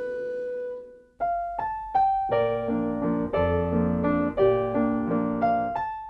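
Piano music: a held chord fades out in the first second, then after a brief gap a piano melody over chords begins, its notes struck one after another.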